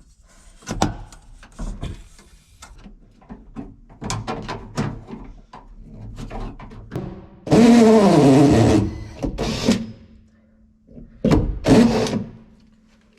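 Clattering and knocking of parts being handled, then a power drill run hard for about a second and a half, its motor pitch sagging and recovering under load, and a second shorter burst near the end.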